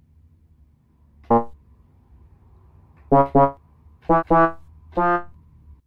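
Small electronic keyboard sounding short single notes as a rooster pecks at its keys. There are six notes at different pitches in an uneven rhythm: one about a second in, then pairs and singles over the last three seconds.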